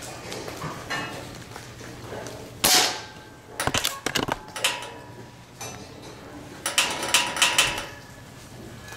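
A single loud, sudden burst a little under three seconds in, then two spells of quick sharp knocks and clicks, one around four seconds in and one near the end.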